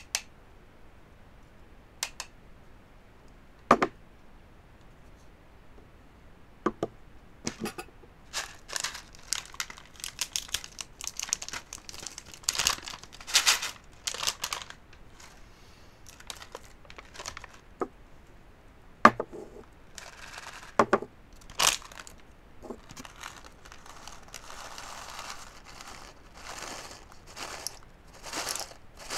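Crinkly packaging being handled: irregular crackling and crumpling with scattered sharp clicks and knocks, in a small room.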